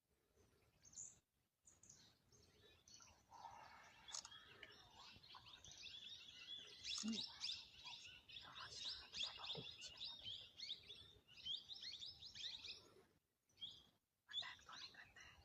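Faint chirping of small birds: many quick, high calls overlapping, starting about three seconds in and fading out near the end.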